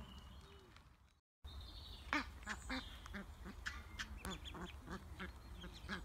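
Geese and their goslings calling: a quick run of short calls, several a second, starting after an abrupt cut-out about a second in. Faint small-bird whistles come before the cut.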